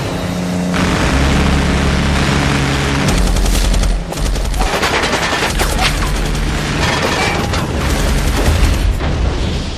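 Heavy automatic gunfire from boat-mounted machine guns: long rapid volleys with booms, densest from about three seconds in until near the end, over film music and a low steady drone.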